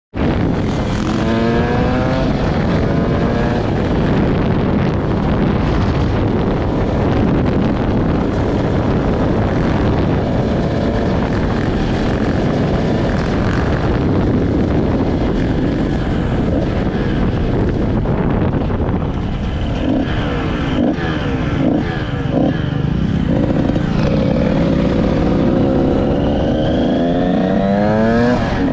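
Two-stroke dirt bike being ridden, the engine pitch climbing as it revs up through the gears, with a steady low rushing noise underneath. The climbs come once near the start and then repeatedly in the last ten seconds.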